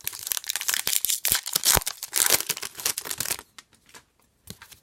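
A hockey card pack's wrapper being torn open and crinkled: a dense crackle for about three and a half seconds, then a few light ticks.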